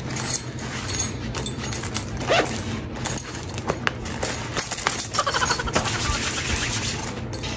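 Rustling and small clicks of a small purse being handled and opened, with a short falling whine about five seconds in.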